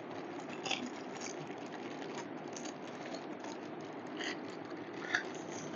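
Faint rustles and light clicks of plastic trolley caster wheels and their packaging being handled, over a steady background hum and hiss.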